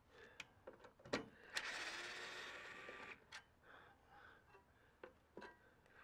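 Scattered metal clicks and knocks from microwave oven parts being worked loose by hand. The loudest knock comes about a second in, followed by a scraping noise that lasts about a second and a half.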